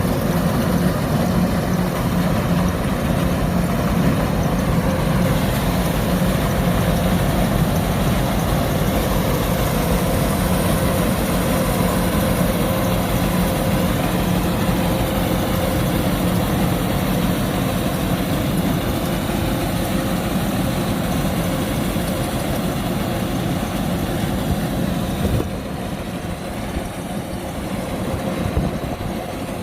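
Kubota DC-105X combine harvester running steadily while harvesting rice: a continuous diesel engine and machinery drone that turns a little quieter and duller about 25 seconds in.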